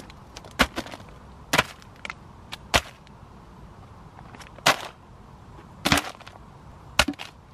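Food packages, a tin and bottles set down one after another on a crinkly plastic tarp groundsheet: about six sharp knocks with rustles, unevenly spaced.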